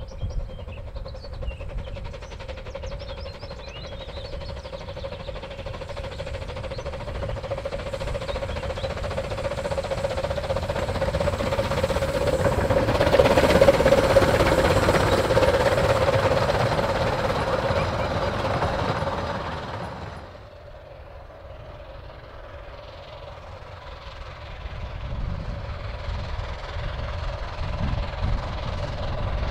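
A 15-inch narrow-gauge steam locomotive hauling a passenger train approaches and runs close past, loudest about halfway through. After a sudden drop, a second steam-hauled train is heard approaching and growing louder.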